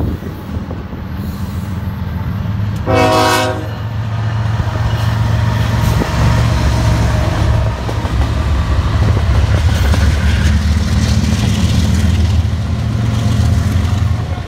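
BNSF diesel freight locomotives passing close by, their engines running with a steady low drone. A short train-horn blast sounds about three seconds in.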